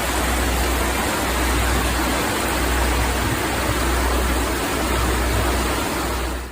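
Steady, dense rushing noise of fast floodwater with a low rumble swelling and dipping beneath it; it cuts off suddenly at the end.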